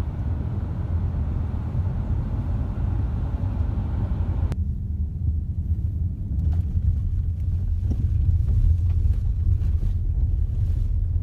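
Steady low rumble of a car on the move. About four and a half seconds in, the higher hiss above it drops away suddenly while the low rumble continues.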